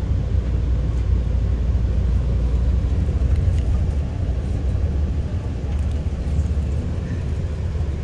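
Tour bus driving, heard from inside the cabin: a steady low rumble of engine and road noise.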